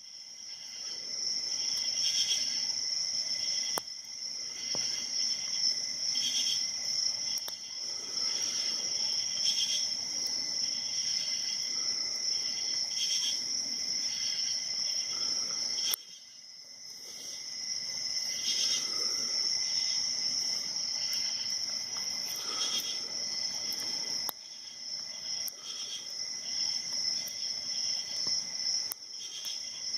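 Steady high-pitched chirring of insects that swells and fades unevenly, broken by a few sharp clicks.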